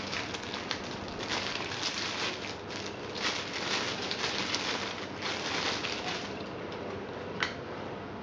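Clear plastic bag crinkling and rustling in irregular bursts as a pair of over-ear headphones is unwrapped from it, busiest in the middle and tapering off, with one sharp click near the end.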